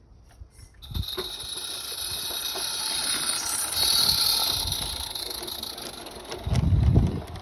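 A 16mm-scale live-steam locomotive, a Roundhouse Billy 0-4-0T, runs close past with a hiss of steam. The hiss sets in about a second in, is loudest as the engine draws level, and then fades as its coaches roll by. A short low rumble comes near the end.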